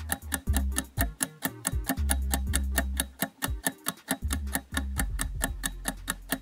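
Quiz countdown-timer sound effect: a fast, even ticking over background music with a deep bass line.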